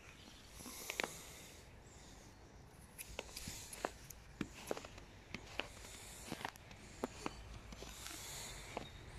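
Faint crunching and brushing of fresh snow being handled and walked on, with many small irregular clicks and a few soft hissing sweeps.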